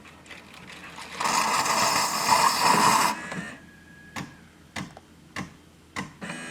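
Siemens EQ500 Classic bean-to-cup coffee machine working through a cappuccino cycle. A loud hissing, whirring burst lasts about two seconds, then comes a run of sharp, evenly spaced clicks about every 0.6 s.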